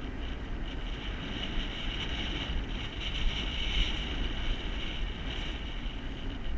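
Wind buffeting the action camera's microphone: a steady low rumble with a hiss that swells and fades.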